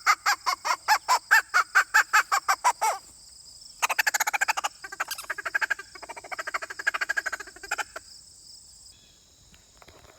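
Squirrel call played to lure squirrels: a rapid run of barking calls, about five a second, that stops about three seconds in, then a second, faster run of chattering barks lasting about four seconds. A steady high insect buzz runs underneath.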